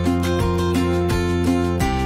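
Background music led by a guitar, with notes changing at a steady pace.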